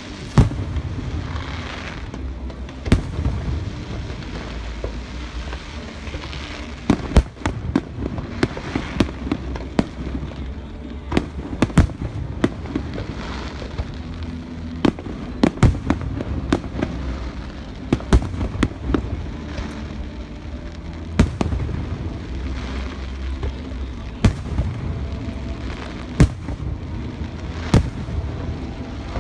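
Fireworks display: aerial shells bursting one after another at irregular intervals, sharp bangs over a continuous low rumble.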